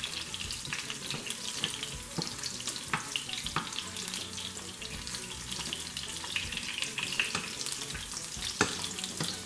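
Garlic cloves sizzling in olive oil in a frying pan, stirred with a wooden spoon, with a few light knocks of the spoon against the pan.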